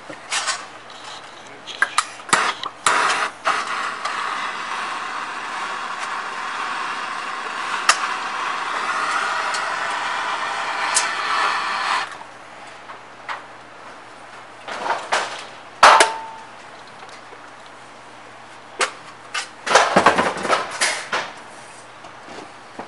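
Gas soldering torch flame hissing steadily for about eight seconds as a seam on a copper still part is soldered, then cut off suddenly. Sharp clanks and knocks of metal tools and clamps on the bench follow.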